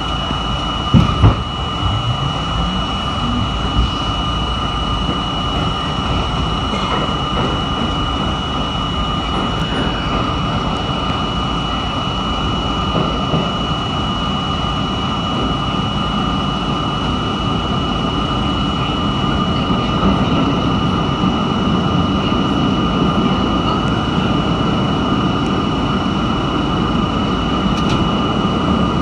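R32 subway car pulling away and running through the tunnel. Two loud knocks come about a second in, then the traction motors' whine rises in pitch as the train picks up speed. Steady wheel-on-rail noise follows, with a high-pitched whine above it, growing a little louder later on.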